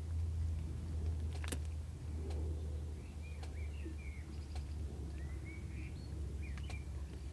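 A small bird giving a series of short, soft chirps from about three seconds in, with a few sharp clicks and a steady low hum underneath.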